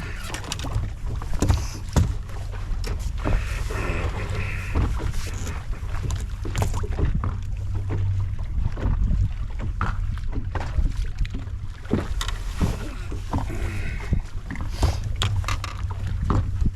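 Wind rumbling on the microphone aboard a fishing boat on the water, with scattered knocks and taps against the boat.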